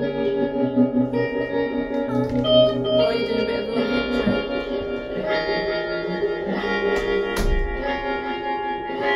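Keyboard on an organ sound playing held chords that change every second or so, with some plucked guitar. Two sharp knocks come about seven seconds in.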